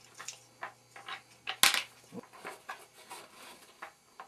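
Scattered clicks and knocks from handling the snow blower's plastic discharge chute and its fittings, with one sharp knock about one and a half seconds in.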